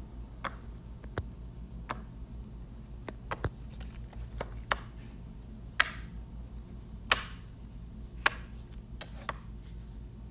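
Silicone push-pop fidget toys (poppets and dimples) being pressed: irregular sharp pops and clicks, about a dozen, some louder than others.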